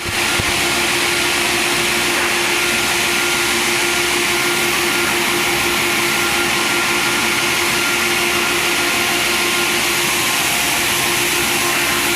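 Sawmill machinery running steadily: a constant loud mechanical drone with a steady whine over a hiss.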